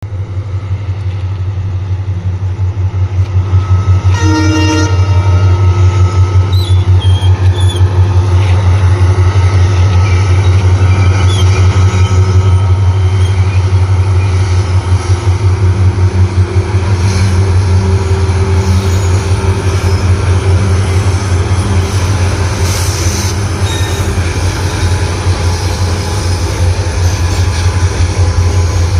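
EMD WDP4D diesel locomotive's two-stroke 16-cylinder 710 engine humming with a deep, steady, pulsing throb. A short horn toot sounds about four seconds in.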